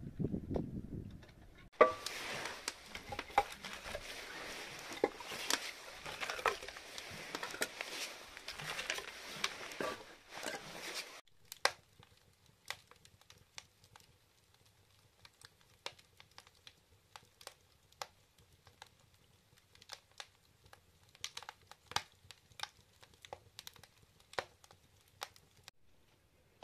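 Logs burning in a wood-fired brick stove, crackling and snapping. The crackle is dense for the first ten seconds or so, then thins to scattered sharp pops and snaps.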